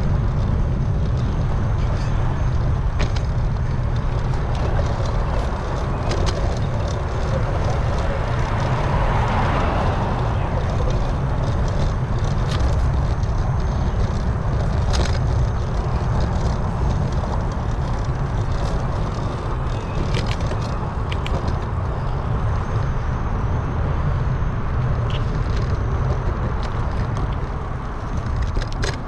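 Wind on the microphone during a bicycle ride: a steady low rumble, with scattered small clicks and rattles.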